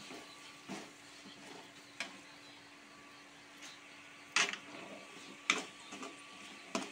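Steel ladle stirring and scraping fried onion-tomato masala in a metal kadai over a faint steady sizzle, with a few sharp scrapes and knocks against the pan, the loudest about four and a half and five and a half seconds in.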